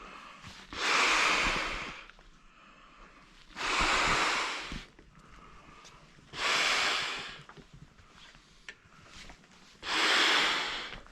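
A person blowing up an inflatable sleeping pad by mouth: four long, forceful exhalations into the valve, about one every three seconds.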